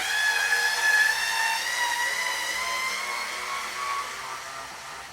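Battery power screwdriver running in reverse to back out a small Phillips screw from the compressor housing: a steady motor whine that starts suddenly, rises slightly in pitch, and dies away near the end.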